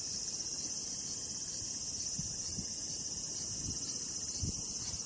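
Insects chirring in the riverbank grass: a continuous high-pitched trill that holds steady throughout, with a few faint low rustles beneath.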